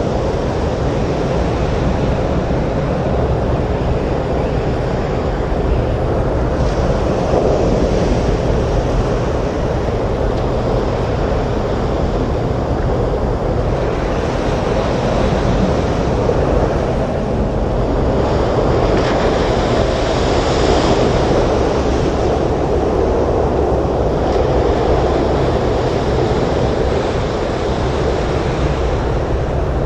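Stormy sea surf with wind: a loud, dense, continuous wash of breaking waves that swells every few seconds, the biggest swell about twenty seconds in.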